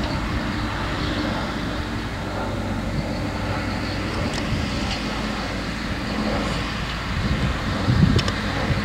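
Valtra T214 tractor's six-cylinder diesel running steadily under load as it pulls a mole plough through the ground, heard from a distance. Near the end a louder, uneven low rumble comes in.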